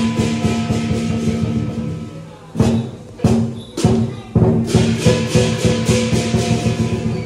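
Lion dance percussion: a big drum beaten in fast, steady strokes with clashing cymbals. A third of the way in the roll breaks into a few heavy accented crashes, then picks up again.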